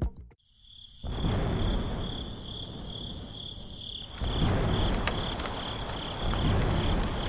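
Crickets chirping in a steady pulse, a few chirps a second, over a low rumbling noise that grows louder about four seconds in.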